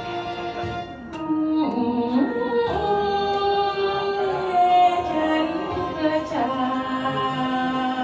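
A woman singing into a handheld microphone over a recorded backing track. Her voice comes in about a second in, with long held notes.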